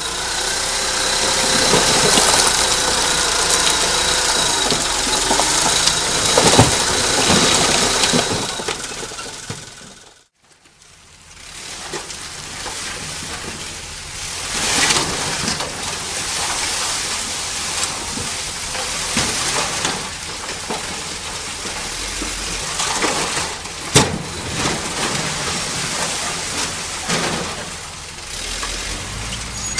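Heavy construction machinery at work: diesel engines running with clanks and knocks. The sound cuts out briefly about ten seconds in, resumes a little quieter, and has a single sharp knock later on.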